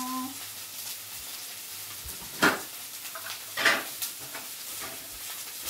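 Shrimp, broccoli and ginger stir-fry sizzling steadily in a frying pan over a gas flame. Two short, loud clatters a little over a second apart come around the middle.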